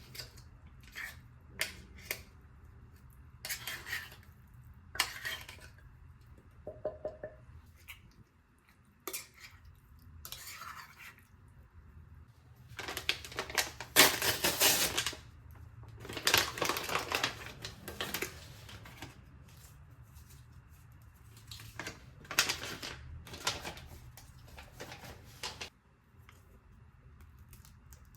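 Kitchen utensils and dishes clinking and scraping while food is prepared: scattered sharp clicks, with longer scraping bursts that are loudest around the middle.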